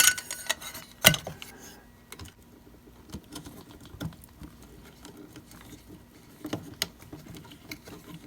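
Small clicks and scraping as a twist-on wire connector is screwed by hand onto the electrical wires to join them, with two sharper clicks near the start and about a second in, then scattered light ticks.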